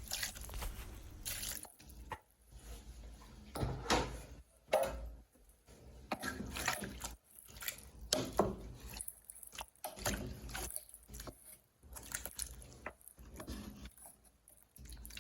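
Irregular wet clatter and splashing as pieces of cooked cow foot are added to a pot of cooked beef in its stock, in separate strokes about every second or so.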